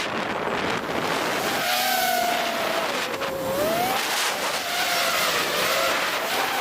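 FPV quadcopter's brushless motors whining, the pitch rising and falling with throttle changes, over a steady rush of air and propeller noise.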